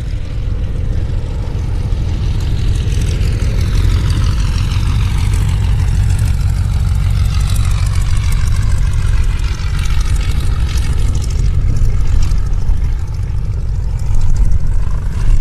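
Antonov An-2 biplane's nine-cylinder radial engine running as the aircraft passes low and close on its landing approach. The tone sweeps as it goes by, and it grows louder near the end, over a heavy low rumble of wind on the microphone.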